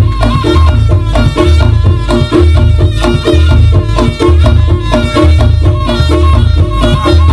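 Live Reog accompaniment music: Javanese gamelan-style percussion and melody with a steady, driving rhythm of low drum and gong beats under repeated pitched notes.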